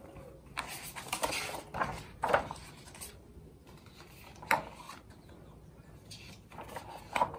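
Pages of a hardcover picture book being turned and handled: a run of rustling paper swishes, then a sharp tap or snap about four and a half seconds in and another near the end.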